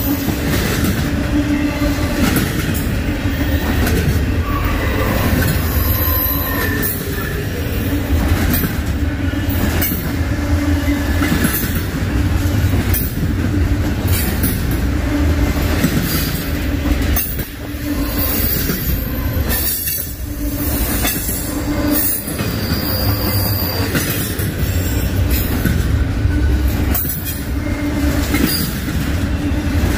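Freight train cars rolling past at track speed: a heavy, steady rumble broken by irregular clicks of wheels over rail joints, with thin high-pitched wheel squeal that comes and goes.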